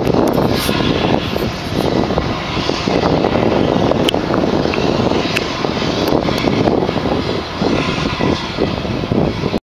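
Freight train of tank cars and boxcars rolling past close by: a loud, steady rumble and clatter of steel wheels on the rails, with a few faint sharp clicks.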